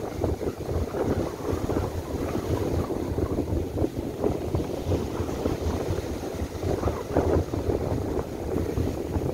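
Strong gusty wind buffeting the microphone, over surf breaking on a sandy beach.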